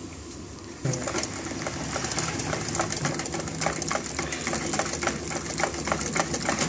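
Electric whisk switched on about a second in, running steadily with a low whirr and a fast clicking rattle as it whisks yogurt into the blended mint sauce mixture in the bowl.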